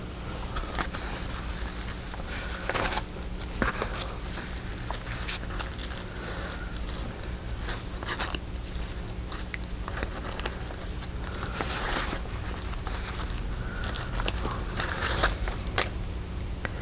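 Paper and craft supplies rustling and crinkling as they are handled, in irregular short bursts.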